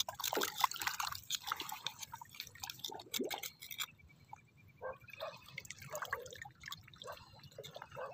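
Knife blade scraping and clicking inside a raw oyster shell as the meat is worked loose, with small wet drips. Irregular small clicks, thickest early on, with a quieter lull about halfway through.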